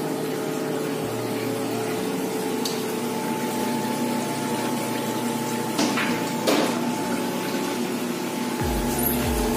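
Automatic washing machine's drain pump running with a steady hum as water flows out of the drain hose onto the floor by the drain, with two brief louder surges about six seconds in.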